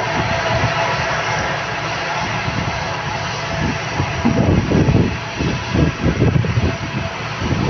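Military airplane's engines running loud and steady, a broad roar with a whine of several steady tones through it; a low fluttering rumble swells in about halfway through.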